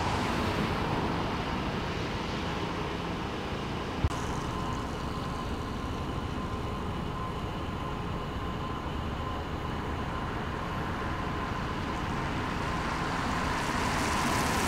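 Road traffic: cars and trucks passing on a highway. A single sharp click comes about four seconds in, and the traffic grows louder near the end as vehicles draw closer.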